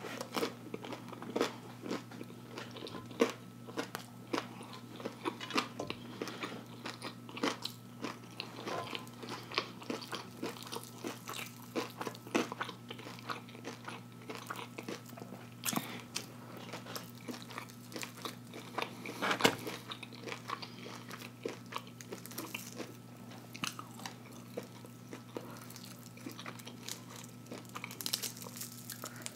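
Close-up mouth sounds of someone eating breaded fried catfish: irregular crunching, biting and wet chewing clicks throughout, as she picks the fish apart with her fingers. A steady low hum runs underneath.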